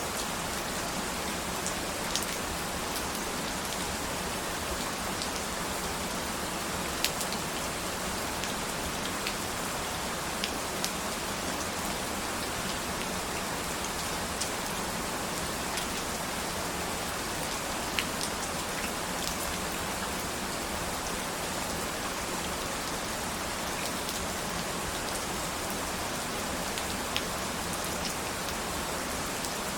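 Steady rain falling, an even hiss, with scattered sharper drops ticking now and then.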